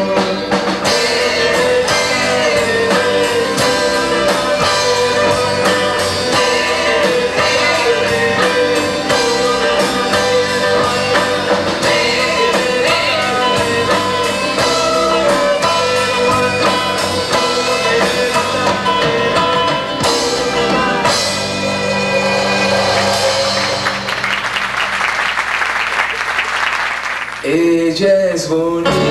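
Acoustic band playing live: acoustic guitars and violins with percussion and a singing voice. Near the end a few seconds of hissing noise swell over the music, then a voice starts again.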